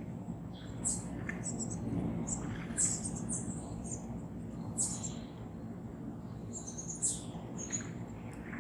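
Small birds chirping: short, high-pitched calls repeated irregularly, about one every second, over a steady low background noise.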